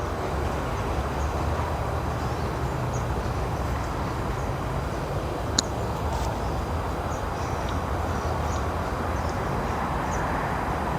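Steady outdoor background noise, a low rumble like distant road traffic, with faint short high bird chirps scattered through it and one sharp click about halfway through.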